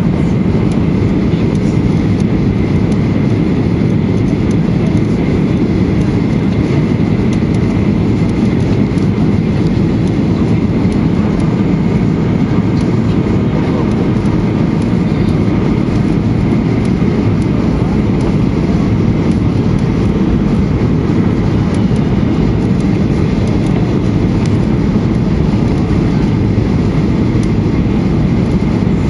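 Steady cabin noise of a Boeing 737-800 on final approach with its flaps extended: the CFM56-7B engines and the airflow, heard from a window seat over the wing. A faint steady whine runs over the low rumble.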